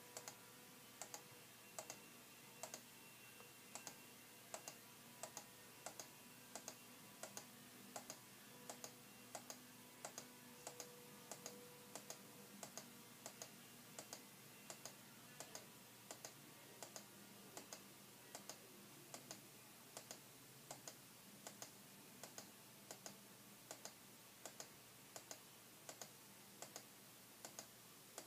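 Faint computer mouse clicks repeated steadily, about two a second and sometimes in quick pairs, stepping through on-screen building instructions. A faint steady hum runs underneath.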